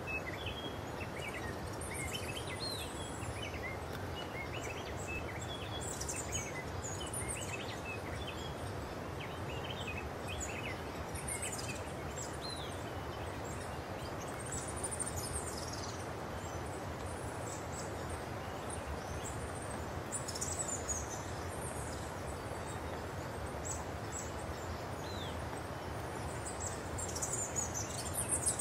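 Outdoor forest ambience: a steady hiss of background noise with many short, high-pitched bird chirps and calls scattered throughout, growing busier and louder near the end.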